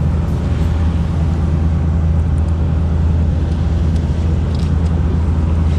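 Fishing boat's engine running with a steady low drone.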